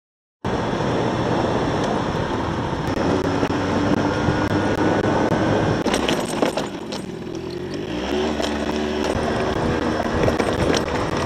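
Adly 50 cc scooter engine running under way on a dirt track, with wind noise and scattered clicks and knocks over the engine. It starts about half a second in, the revs drop around six and a half seconds in, and they climb again about two seconds later.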